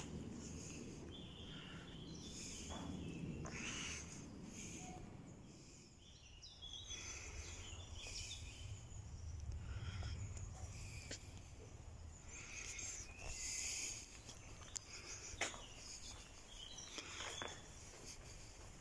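Faint outdoor ambience: scattered bird chirps and calls over a steady low rumble, with a few light clicks.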